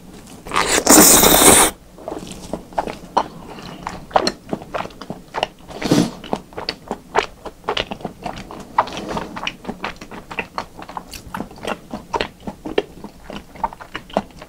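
Close-miked wet chewing of a mouthful of Korean raw beef tartare (yukhoe): many small sticky mouth clicks with occasional crunches. About a second in comes a loud rush of noise lasting about a second as the bite is taken into the mouth.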